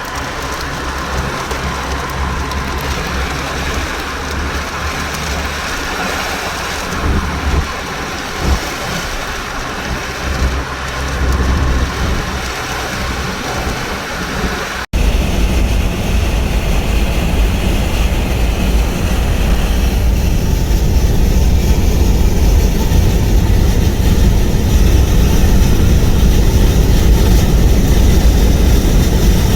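Storm noise of wind and rain with a low rumble. About halfway through there is an abrupt cut to a louder, steady low roar that builds gradually.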